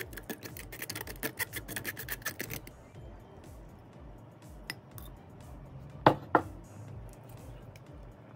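Metal spoon scraping and pressing egg through a stainless steel mesh sieve in quick, rattling strokes that stop about two and a half seconds in. Later, two sharp knocks come about a third of a second apart.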